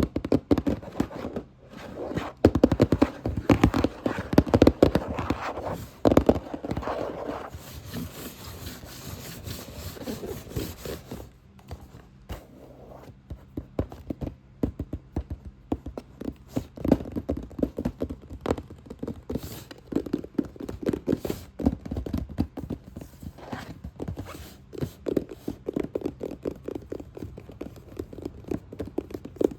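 Fast, hard tapping and scratching on a box, a dense run of quick taps. It is loudest over the first several seconds, softer through the middle and picks up again after about halfway.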